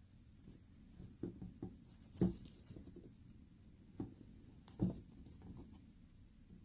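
Handling noise from a sneaker being turned over in the hands: a few soft knocks and rubs. The loudest comes a little over two seconds in and another near five seconds.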